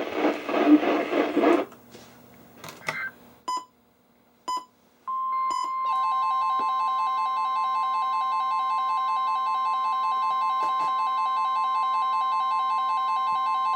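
A broadcast voice stops, followed by a few clicks and two short beeps. About five seconds in, NOAA Weather Radio's steady 1050 Hz warning alarm tone starts, and within a second several weather radio receivers add their own alert alarms, a fast pulsing tone over a cluster of steady tones, announcing a new warning.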